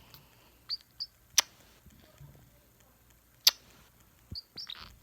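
Pet cockatoo giving a few short, high squeaky chirps, with two sharp clicks between them.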